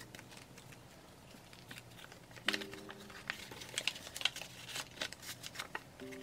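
Paper and card rustling and crinkling as a greeting card and a photocard packet are handled and slid into a kraft paper envelope, a quick run of small crackles and scrapes starting about two and a half seconds in. Faint soft music notes sound underneath.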